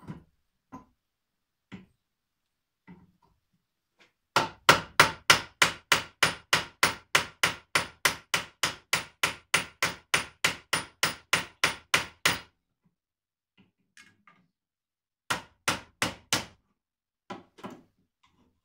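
Hammer peening rivets on a walk-behind tractor mower's sickle knife bar held in a bench vise, metal on metal. A few single taps, then a fast, even run of about thirty blows at roughly four a second, and a few more blows near the end.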